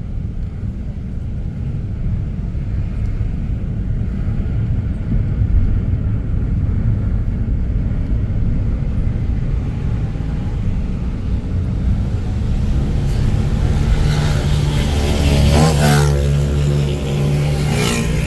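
A car driving along a road: steady low engine and road rumble. Near the end another vehicle passes close by, its engine pitch sliding as it goes past.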